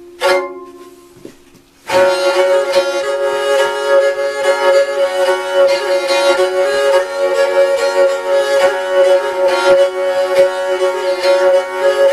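Jouhikko, a wooden bowed lyre with horsehair strings: one short bowed note just after the start rings away, then from about two seconds in a continuous bowed tune over a steady drone string.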